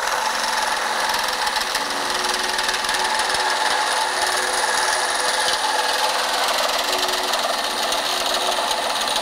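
Metabo HPT CR18DAQ4 18-volt cordless one-handed reciprocating saw running steadily as its blade cuts through metal electrical conduit. There is some vibration in the cut, which is put down to the vise moving.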